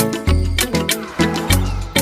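Music with a steady beat, about two strikes a second, over heavy sustained bass notes.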